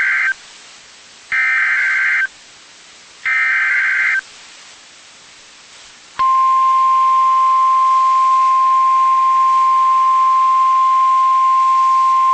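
NOAA Weather Radio Emergency Alert System tones: the SAME header's digital data bursts, harsh buzzy screeches about a second each, heard three times a second apart (the first already ending). After a pause of about two seconds the steady 1050 Hz warning alarm tone starts and holds, signalling that a new warning broadcast follows.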